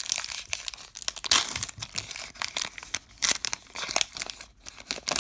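A baseball card pack wrapper being torn open and crinkled in the hands, an irregular run of crackling and ripping, loudest about a second in.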